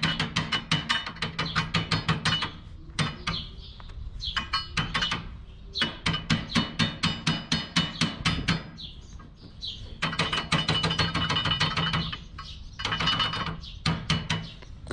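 Welder working on a baler rod in several short runs of a few seconds each: a rapid, even ticking of about seven ticks a second over a steady hum, stopping and starting again with brief pauses between runs.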